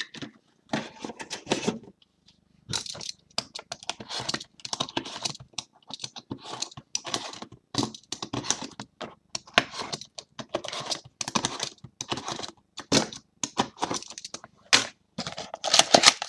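Quick, irregular clicking and tapping, several strokes a second, with a brief pause about two seconds in.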